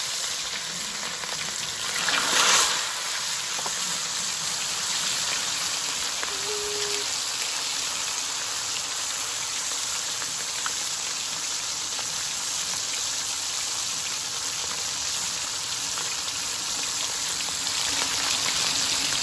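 Cobia steaks frying in hot oil in a wok: a steady sizzle with scattered crackles and pops. About two seconds in the sizzle swells briefly louder as a second steak goes into the oil.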